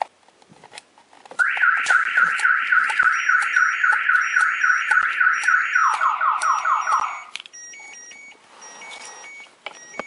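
Audiovox Prestige APS997E remote-start alarm's siren going off on first power-up: a loud, rapidly repeating warble. About six seconds in it drops to a lower-pitched warble, then cuts off suddenly about a second later.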